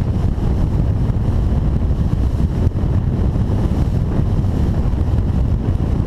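Steady wind buffeting the microphone aboard an open boat at sea, a dense low rumble.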